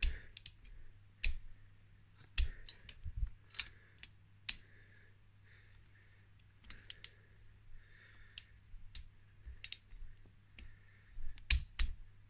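Torque wrench ratcheting on the cylinder head bolts of a Honda QR50 engine as they are tightened: sharp metallic clicks at irregular intervals, with short runs of quicker ticks and two louder clicks near the end.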